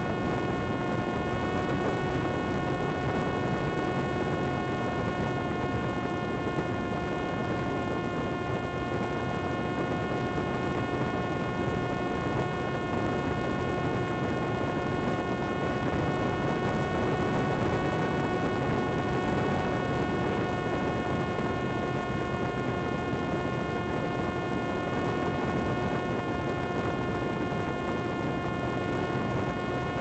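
Parrot Disco fixed-wing drone's electric motor and rear pusher propeller running at high throttle, heard from on board: a steady whine whose pitch barely changes, over a constant noisy hiss.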